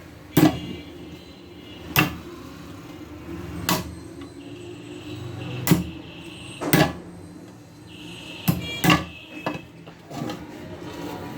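Sharp knocks of a tool on metal, about eight at uneven intervals, as a jammed part is forced loose on a mixer grinder's motor shaft, locked so the rotor cannot turn.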